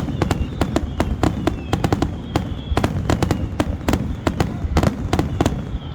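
Aerial fireworks going off in rapid succession: a dense barrage of sharp bangs and crackles, several a second, over a steady low rumble, as the display builds toward its grand finale.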